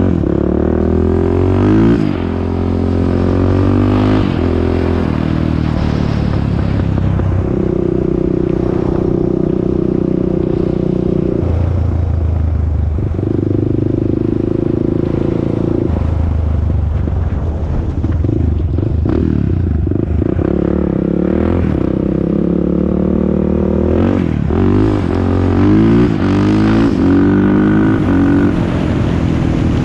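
Honda TRX400EX ATV's single-cylinder four-stroke engine running under riding load. Its pitch climbs and drops repeatedly as it accelerates and eases off, with two steadier stretches held in the middle.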